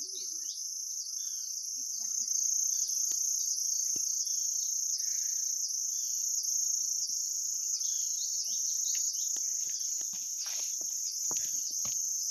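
Insect chorus: a loud, high-pitched shrill that pulses in a steady rhythm throughout. A few faint knocks come near the end.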